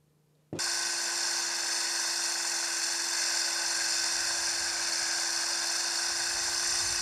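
Circular saw with a diamond blade cutting concrete, with a shop vacuum pulling the dust away through a dust shroud: a loud, steady whine and hiss that starts abruptly about half a second in.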